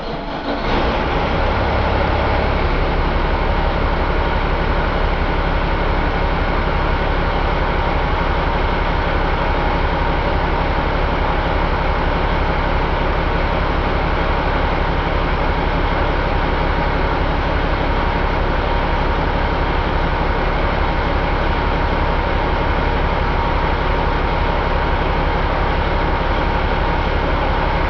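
1998 Caterpillar C15 inline-six turbo diesel firing up at the start and settling within a couple of seconds into steady running.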